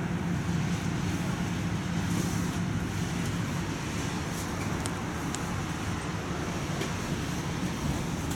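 A steady low hum and rumble inside a Tatra T3 tram car, with a few faint ticks.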